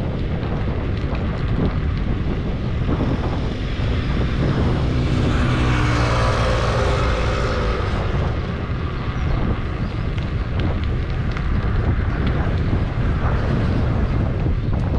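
A passing vehicle's engine swells and its pitch falls as it goes by, loudest a few seconds in. Steady wind rumble on the bike-mounted camera's microphone runs underneath.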